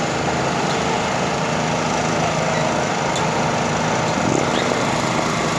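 Portable petrol generator running steadily, an even engine hum.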